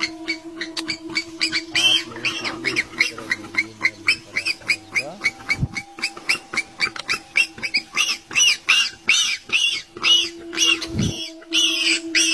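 A rapid series of short, high, arching animal calls, about three to four a second, growing louder in the second half, over a steady low hum.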